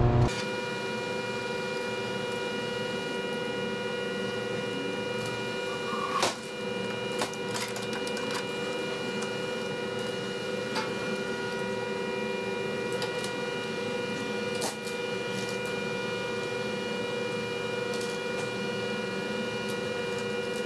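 Steady mechanical hum made of several fixed pitches, with a few faint clicks.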